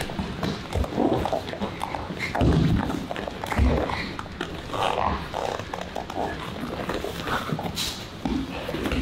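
Two fighters grappling on a cage mat, with irregular strained grunts and heavy breathing, and short thuds and scuffs of bodies and gloves against the mat.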